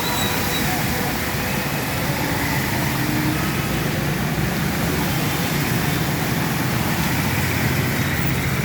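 Steady traffic noise, with vehicle engines running under an even hiss.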